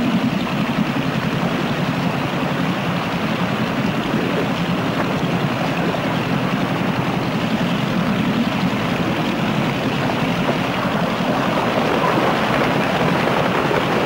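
An outboard motor on an inflatable rescue boat running steadily, getting a little louder near the end.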